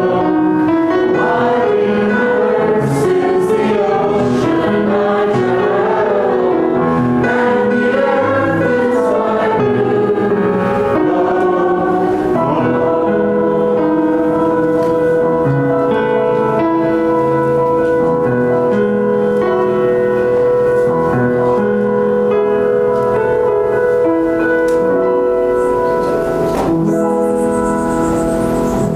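Small choir singing a hymn in harmony; from about halfway on the music moves into long held notes, easing off near the end.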